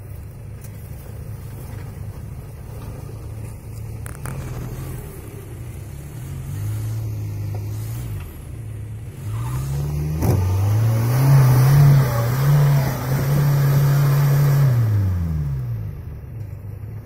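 An off-road 4x4's engine revving hard. Its pitch rises in steps from about six seconds in, is loudest and highest for several seconds after about ten seconds, then drops back near the end.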